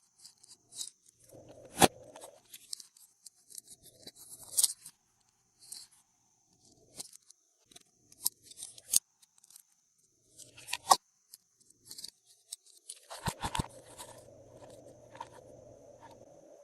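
Glossy slime being worked by hand: irregular sticky clicks and pops, turning into a denser continuous squishing for the last few seconds. A faint steady high whine sits behind it.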